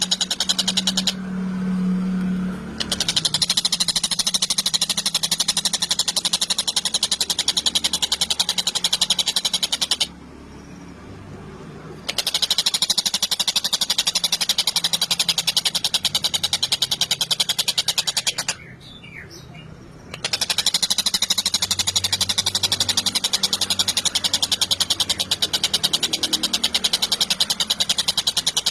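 Tengkek buto, a kingfisher, giving a loud, very fast rattling chatter of sharp high notes in long bouts of several seconds, broken by short pauses of about two seconds.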